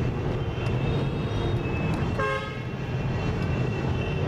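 Steady low traffic rumble, with a short horn toot about halfway through.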